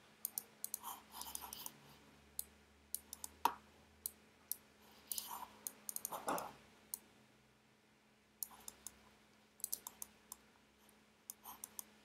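Faint clicking of a computer mouse and keyboard keys in irregular clusters of taps, with a quiet pause of about a second and a half past the middle.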